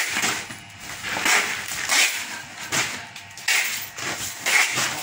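White-rumped shama singing in quick, irregular bursts of sharp chattering and whistled notes.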